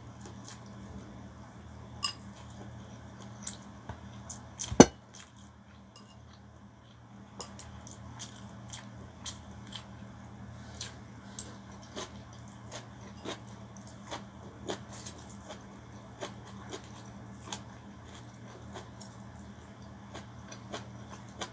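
Close-up mukbang eating of rice noodles: chewing and slurping with many small sharp mouth clicks, and plastic chopsticks tapping a porcelain bowl; one sharp click about five seconds in is the loudest. A steady low hum runs underneath.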